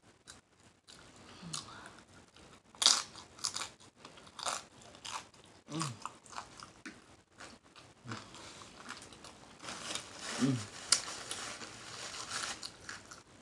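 Close-miked mouth sounds of a person eating: wet lip smacking and chewing in a run of sharp clicks, with a couple of short low vocal sounds.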